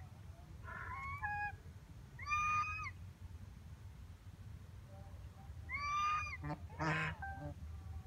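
Domestic geese honking: a string of loud nasal honks, the strongest about two and a half and six seconds in, and a harsher, raspier call near the end.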